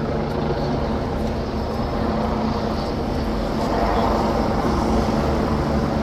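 Street traffic: a steady low engine hum that swells slightly about four seconds in.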